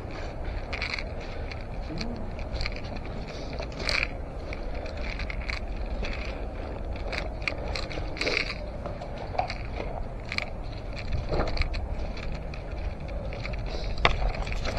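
Footsteps crunching and scraping through dry brush, with irregular clicks and knocks, over a steady low rumble.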